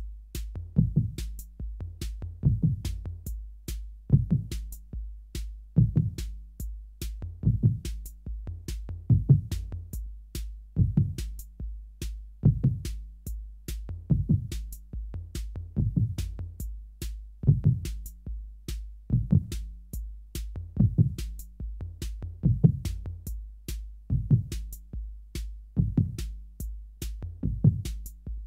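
Heartbeat sound effect set to a drum-machine rhythm: a deep heartbeat thump about every second and a half, with fast sharp ticks between the beats over a steady low hum.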